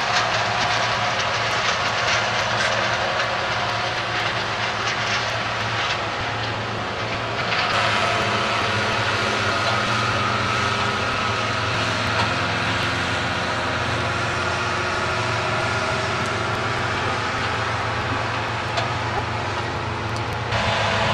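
Engine running steadily: a constant low hum under a broad rushing noise that grows stronger a few times, about a third of the way in and again near the end.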